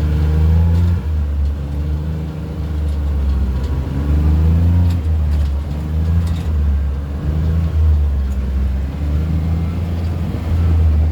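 ATV engine running while driving, its pitch rising and falling repeatedly as the throttle opens and eases.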